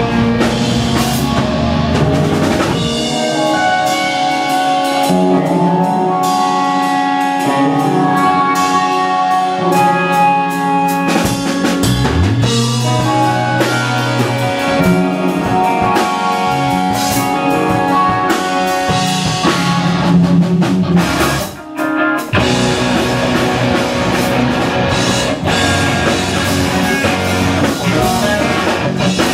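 Instrumental rock band playing live: electric guitars, electric bass and drum kit. About three seconds in, the bass drops out and the guitars play ringing melodic lines over lighter drums. The bass slides back in near twelve seconds. After a brief stop a little past twenty-one seconds, the full band comes back in together.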